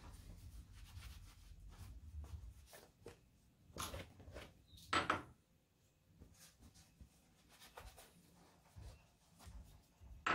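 Cloth rag rubbing over the metal vise and a crank-web blank, with a few knocks as the metal blank is handled in the vise. The loudest knock is about five seconds in, and a sharp metal clink near the end rings briefly.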